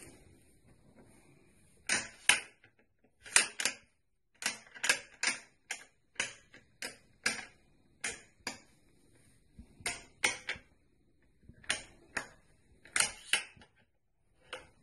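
A run of sharp clicks, mostly in quick pairs, about two dozen in all, from a firearm's parts being worked by hand.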